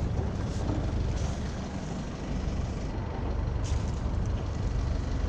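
Sailboat's inboard engine running steadily with a low rumble, under a hiss of wind and water with a few brief gusts.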